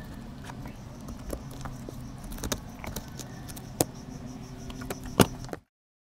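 Fish being filleted by hand on a plastic cutting board: the knife scrapes and taps against the board in scattered sharp clicks, over a steady low engine-like hum. The sound cuts off suddenly near the end.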